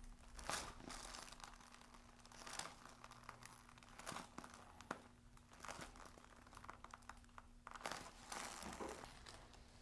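Soft rustling and crinkling in short scattered bouts as the chiropractor's hands work pressure into the patient's neck, over a faint steady hum.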